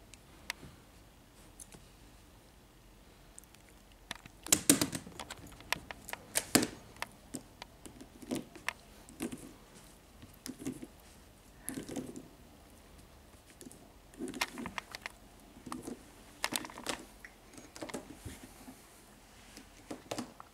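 Irregular clicks, taps and scuffles of a puppy playing with a plastic Rubik's cube. They start about four seconds in and come in loose clusters.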